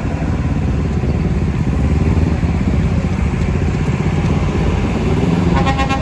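Truck and car engines running steadily as vehicles drive around a hairpin bend. Near the end, a brief high-pitched beep.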